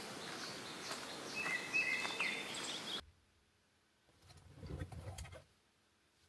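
Outdoor forest ambience with birds chirping, a few short high calls about a second and a half in. It cuts off abruptly halfway through, and a brief low rumble of handling noise follows.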